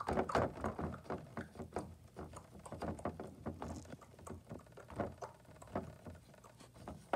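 Light, irregular tapping and rustling as a plush toy's feet are pressed and shuffled on a plastic toy phone's screen.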